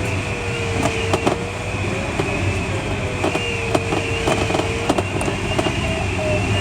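Air rushing over an ASK21 glider's canopy heard inside the cockpit, a steady rumbling noise with scattered small clicks and rattles. A faint steady tone slowly dips and rises under it.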